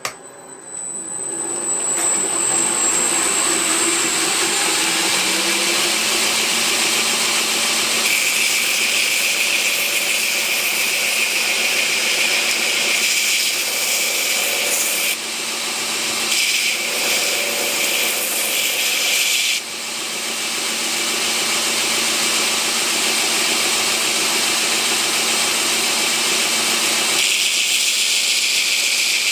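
Knife makers' belt grinder coming up to speed over the first couple of seconds, then running steadily with the hiss of a steel knife blank being ground against the abrasive belt to refine its profile. The grinding noise shifts and dips a few times as the work is moved or lifted.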